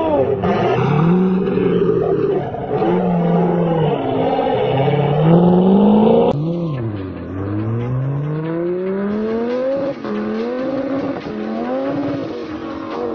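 A sports car's engine revving hard, its pitch swinging up and down, with tyre noise as the car slides in circles. About six seconds in, it cuts to another car accelerating flat out, the engine pitch climbing, dropping back and climbing again as it shifts up through the gears.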